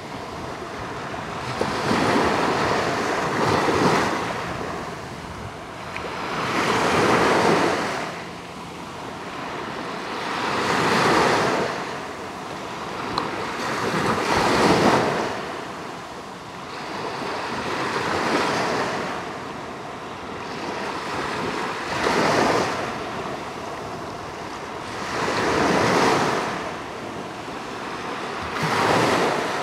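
Small sea waves breaking and washing up a sandy shore at the water's edge, the surf swelling about every three to four seconds.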